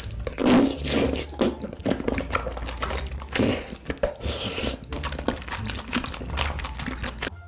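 Close-miked chewing of soft tteokbokki rice cakes coated in cheese sauce: wet, sticky mouth sounds in irregular bursts.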